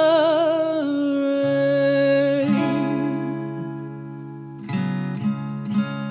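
Closing bars of an acoustic song: ringing acoustic guitar chords and held notes with vibrato slowly fade, then three quick guitar strums come near the end.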